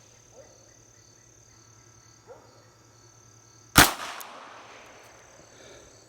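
A single shot from a Smith & Wesson K22 revolver firing .22 LR, a sharp crack about two-thirds of the way in, with an echo that dies away over about two seconds. Crickets chirp steadily in the background.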